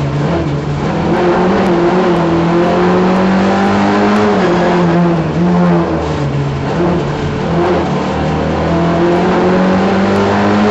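Simca rally car's engine heard from inside the cabin, driven hard on a stage: its note climbs steadily with the revs and drops several times at lifts and gear changes, then climbs again.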